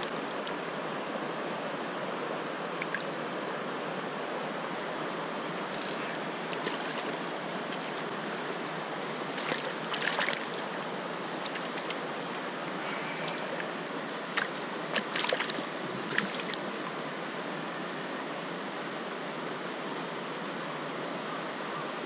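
Mountain stream rushing over rocks, a steady rush. A few short, sharp sounds near the middle come from handling a landed trout with forceps in the shallows.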